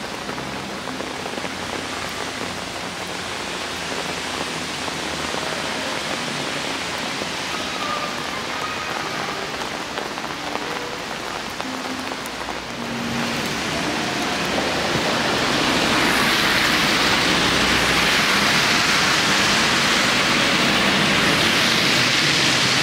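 Steady rain falling and splashing on wet stone paving, an even hiss that gets louder a little past halfway through.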